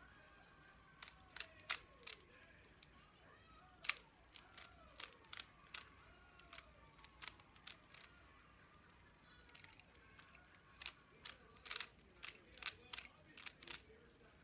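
A speed-solving Rubik's cube being turned fast, its plastic layers clicking and snapping in irregular bursts of sharp clicks, thickening near the end.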